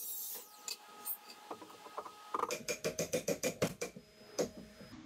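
A mallet tapping a 2x4 down into a slot cut in a plywood shelf: faint knocks at first, then a quick run of about eight sharp strikes in a second and a half, and one more blow shortly after.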